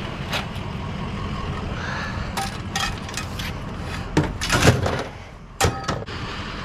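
A vehicle engine running steadily, with a series of sharp knocks and clunks over it. The loudest cluster comes just past the middle, and a single bang follows about a second later.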